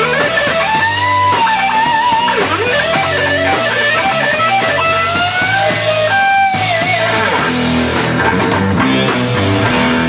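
Hard rock band playing, with a lead electric guitar solo of bent, wavering notes over a bass line.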